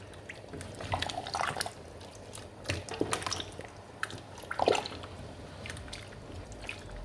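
Watery meat-stock stew sloshing and dripping in a metal pot as a wooden spoon stirs through it, with a few short knocks of the spoon, the loudest about two-thirds of the way in.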